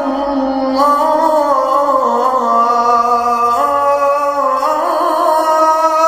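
Intro music: a sung vocal melody with long held notes that step up and down in pitch.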